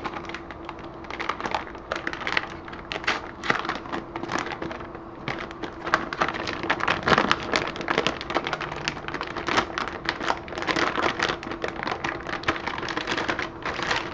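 Clear plastic bag crinkling and crackling in the hands as it is handled and turned over, irregular crackles throughout, over a faint steady low hum.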